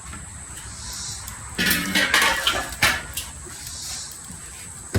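Chicken wings being laid on a hot Weber kettle grill grate: a steady sizzling hiss, with a burst of clattering and knocking, metal and handling noise, from about one and a half to three seconds in.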